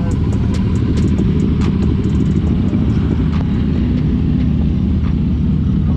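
Motorcycle engines idling: a steady low rumble, with faint ticks now and then.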